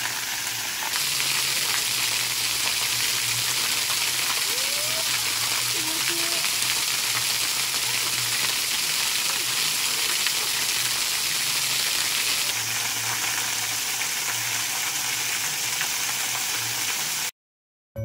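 Steady rushing hiss of a small spring-fed waterfall, which stops abruptly near the end.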